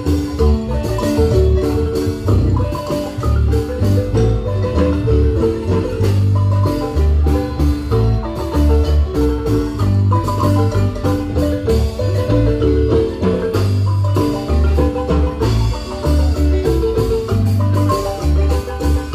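Marimba ensemble playing a lively tune: quick repeated mallet strokes on the melody over deep bass notes in a steady rhythm.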